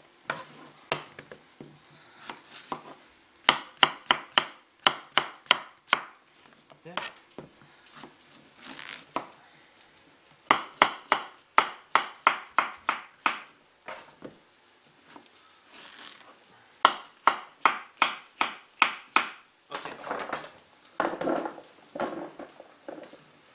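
Kitchen knife chopping courgette into chunks on a wooden cutting board: three runs of quick, sharp knocks of the blade on the board, about three to four a second, with pauses and a few single cuts between them.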